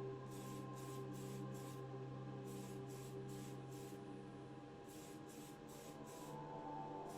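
Aerosol can of Tamiya TS-50 Mica Blue lacquer sprayed in short, quick puffs: groups of three or four brief hisses with pauses between, faint.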